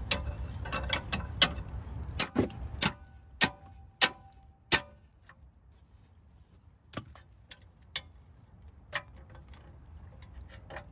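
Hand tools on the steel of a brake caliper bridge bolt: an irregular run of sharp metallic clicks and clanks, some with a brief ring, as a wrench and bar are worked onto the bolt. They are loudest and densest in the first five seconds, then a few fainter clicks follow.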